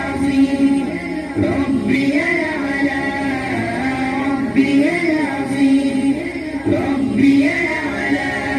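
Music: an Islamic devotional song sung by female voices, the melody rising and falling.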